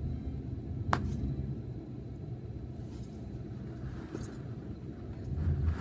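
Steady low rumble, like the inside of a vehicle, with one sharp click about a second in.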